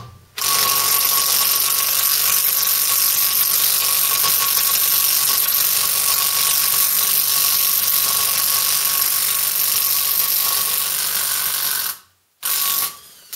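Makita cordless impact wrench hammering continuously as it turns a bearing-race installer, drawing a new bearing outer race into a VW T25 front hub. It stops sharply, then gives one more short burst near the end.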